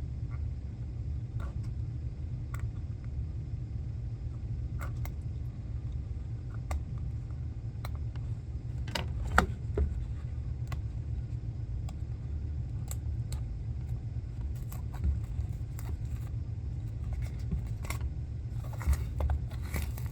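Fingers picking at and peeling the thin plastic shrink-wrap off a small product box, giving scattered crinkles and clicks, a few louder ones about halfway and near the end. A steady low rumble runs underneath.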